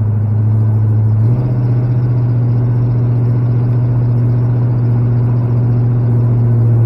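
Old farm truck's engine and drivetrain heard from inside the cab while driving: a loud, steady low drone that steps up slightly in pitch just over a second in, then holds.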